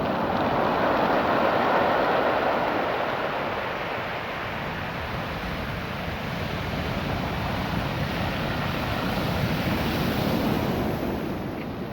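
Ocean surf washing over a beach of small rounded stones, making a steady rushing wash that swells about a second in, eases off midway, and builds again near the end.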